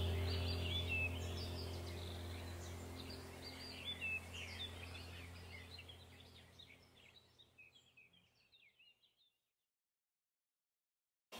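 Background ambient music track: a low steady drone with birds chirping, fading out over about seven seconds into silence.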